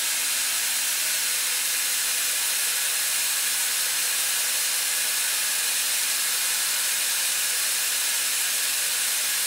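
Large vertical band sawmill cutting lengthwise through a monkeypod slab as the log carriage feeds it past the blade: a steady, even hiss with a faint hum underneath.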